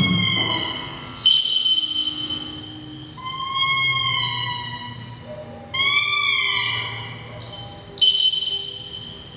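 Improvised experimental music: a series of ringing tones rich in overtones, each starting sharply and fading over one to two seconds. Four come in succession, some sliding up and then back down in pitch.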